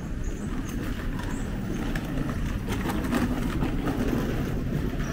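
City street ambience with vehicle traffic running past: a steady low rumble of traffic noise, with a few short clicks about three seconds in.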